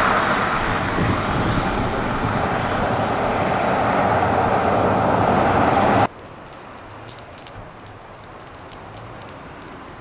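A loud, steady rushing noise, like wind on the microphone or road traffic, cuts off abruptly about six seconds in. After it comes much quieter sharp crackling and popping from burning dry grass and brush in a forest ground fire.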